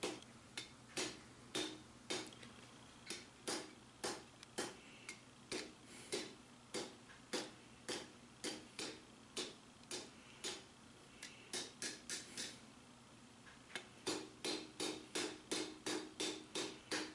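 Hand hammer striking a red-hot lawnmower-blade steel on an anvil in a steady run of blows, about two a second, quickening to about three a second near the end. The smith is drawing the blade's tip out into a point, alternating blows on the edge and the face.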